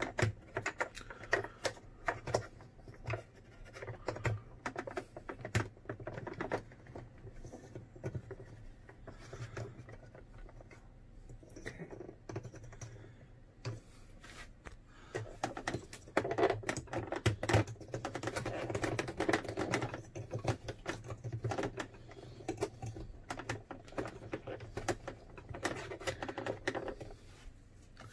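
Irregular light plastic clicks and taps, with denser rustling in the second half, from a refrigerator temperature control knob being pushed and turned on its thermostat shaft without seating.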